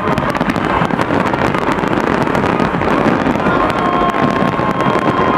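Large aerial fireworks display: a dense, continuous barrage of shell bursts and crackling with no pause. About three and a half seconds in, a long held high note comes in over the bursts.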